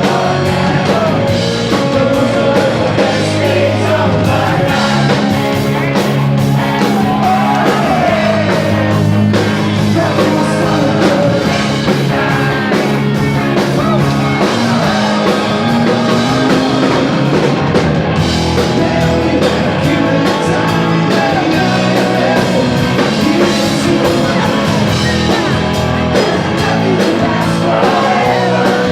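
Live rock band playing loudly, with a lead singer singing over the band.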